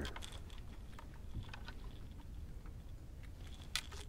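Scattered small clicks and light knocks of gear being handled in a boat, over a low steady rumble, with one sharper click near the end.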